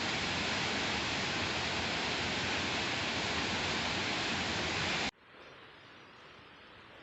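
Steady, loud rush of a waterfall heard close up, which cuts off abruptly about five seconds in, leaving only a faint steady hiss.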